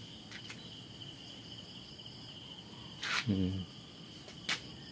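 Steady high-pitched insect chirring, with a few light clicks and a man's brief murmur about three seconds in.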